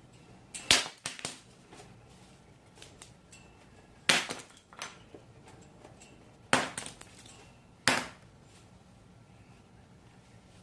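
Four sharp knocks with a brief clinking clatter, spaced a few seconds apart.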